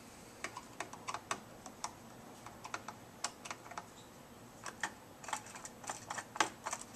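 Faint, irregular small clicks and ticks of a small screwdriver turning out the screws that hold the aluminium GPU tensioner bracket on the back of a Radeon HD 5770 graphics card.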